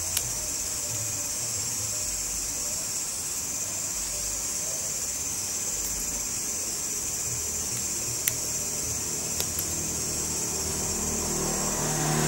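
Steady background noise, a high hiss over a low rumble, with a single sharp click about eight seconds in and a few fainter ticks.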